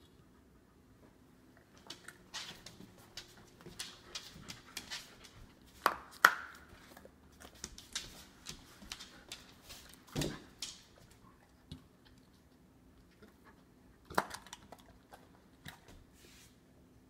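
A wolfdog and a Siberian Husky mix biting and chewing steamed asparagus ends: a quick run of crisp crunches and jaw clacks, with a few louder bites.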